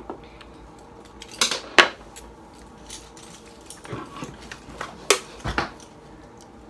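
Clicks and clatters of small hard makeup products and containers being handled, picked up and set down on a table: a handful of separate sharp knocks, the loudest just under two seconds in.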